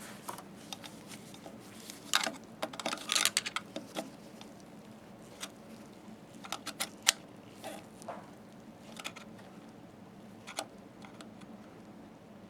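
Screwdriver prying against the metal lip of a slit lamp chinrest bracket to widen it for a new cable: irregular metallic clicks and scrapes, a cluster of them about two to four seconds in and one sharp click about seven seconds in.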